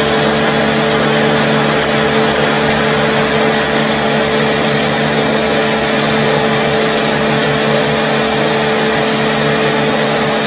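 A machine's motor running steadily: a loud, unchanging hum over an even rushing noise.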